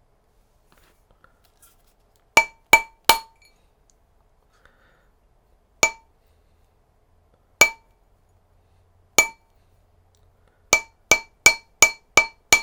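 A mallet tapping a brass ring on a ring mandrel to size it. About a dozen sharp metallic clinks: three quick taps, then three spaced ones, then a fast run of six near the end.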